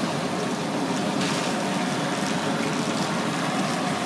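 Handheld gas torch running with a steady rush over a grill, with oysters bubbling in their juices in the shell.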